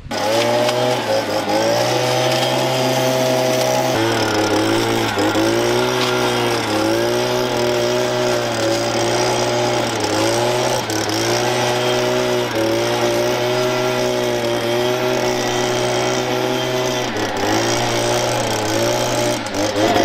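Stihl two-stroke handheld leaf blower running hard, its engine pitch surging up and dropping back every second or two as the throttle is worked.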